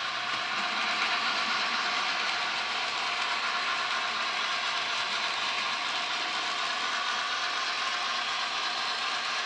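HO scale Bachmann Spectrum 2-6-0 model steam locomotive running with its freight train: a steady whir of the small motor and gears, with the wheels rolling on the track.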